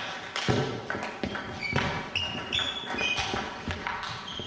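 A celluloid table tennis ball in a fast rally, struck by rackets and bouncing on the table: a run of sharp pings about two a second, echoing in a gym hall.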